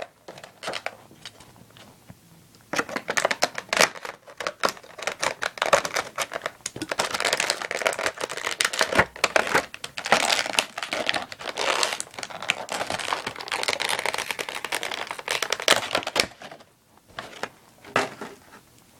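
Plastic and cardboard toy packaging crinkling and tearing as an action figure is handled and taken out of its box. The crackling is quiet for the first few seconds, dense from about three seconds in, and dies down near the end.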